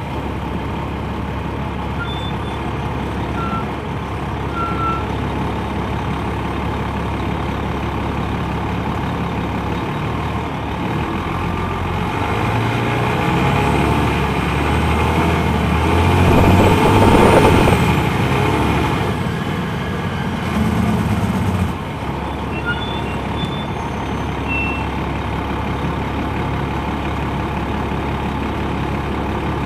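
Detroit Diesel Series 60 engine of a 2001 MCI D4000 coach bus running with a low steady hum. It builds up as the bus pulls away, peaks a little past halfway, then drops back suddenly to a steady hum near the end.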